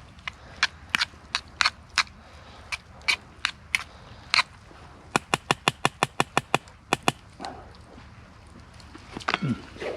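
Sharp clicks and taps, spaced irregularly at first, then a quick run of about a dozen at roughly eight a second; near the end, a short low sound that falls in pitch.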